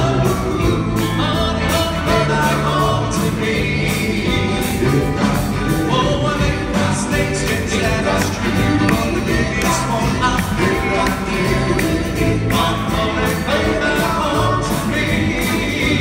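Male doo-wop vocal group singing in harmony over a live band, with drums keeping a steady beat.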